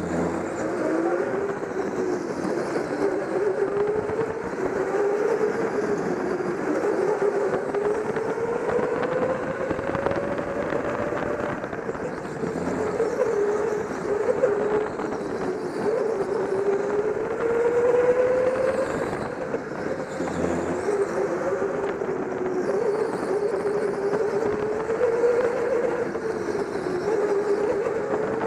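Go-kart motor heard from on board, its pitch rising and falling again and again as the kart speeds up on the straights and slows into the corners.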